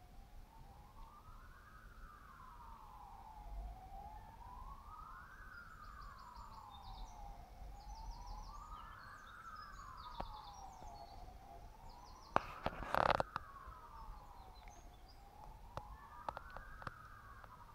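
Emergency vehicle siren wailing, its pitch sliding slowly up and down about every four seconds. Birds chirp faintly above it, and a brief loud burst of noise cuts in about two-thirds of the way through.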